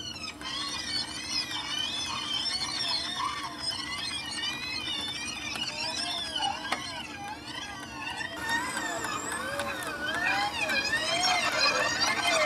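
A 1963 Geloso G257 reel-to-reel tape recorder running its tape at high speed, the recording on the tape coming through its speaker as a high-pitched, warbling chatter of quickly rising and falling tones over a low steady hum. About eight seconds in, the warbling drops lower and gets louder.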